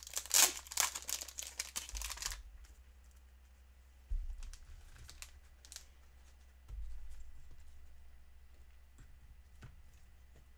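Clear plastic card-sleeve packaging crinkling and tearing for the first couple of seconds, then quieter scattered light clicks and taps as the sleeves are handled. Two low bumps come about four and seven seconds in.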